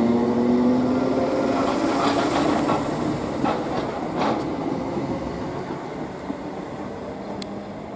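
Electric multiple unit of the Class 321 type pulling away from the platform. Its traction motor whine levels off and fades as the sound draws away, with wheels clicking over rail joints a few times.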